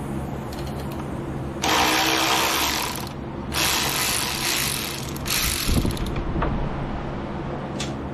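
Power ratchet with a T25 Torx bit run in three bursts, the last one short, backing out the screws of an intake manifold tuning valve. A few light clicks follow.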